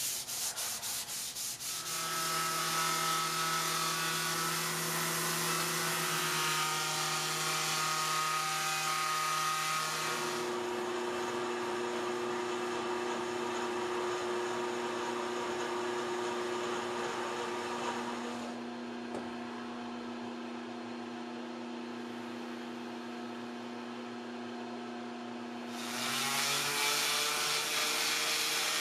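A power tool running steadily while sandpaper rubs against the work, with a motor tone that changes pitch several times. There are quick, even ticks as it spins up at the start.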